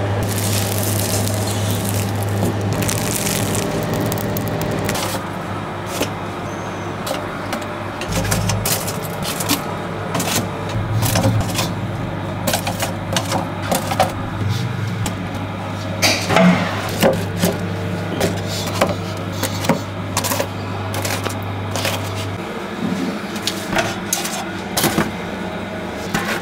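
A steady low machine hum, as from bakery equipment, with irregular clicks and knocks over it.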